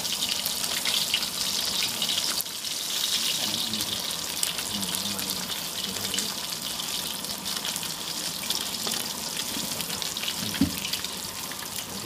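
A split sea fish frying in hot oil in a wok: a steady sizzle full of fine spitting crackles. There is one short knock near the end.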